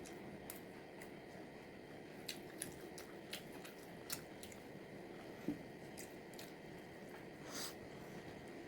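Eating pepper chicken: faint chewing and biting with irregular wet mouth clicks over a steady low hiss.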